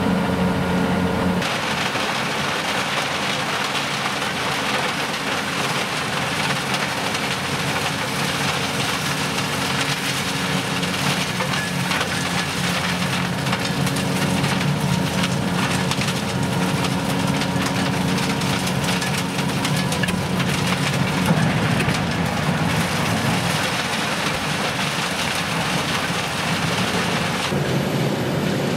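Tractor-driven mobile wood chipper running under load, its engine note steady beneath a dense crackle of wood being chipped. The sound changes abruptly about a second in and again near the end.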